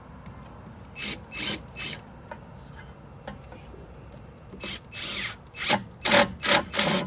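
Short rough scraping strokes of metal brake parts being worked together while the rear brake caliper and its bolts are refitted: three about a second in, then a quicker run of five or six near the end.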